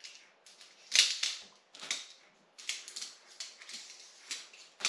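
DAC aluminium tent pole sections clicking and clacking against each other as they are handled and pulled apart: a string of irregular sharp clicks, the loudest about a second in.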